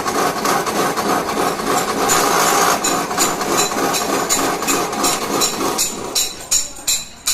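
Electric wire-stripping machine running as a 1 mm wire is fed through: a dense mechanical rattle with sharp ticks about three a second. It thins out over the last second and stops near the end.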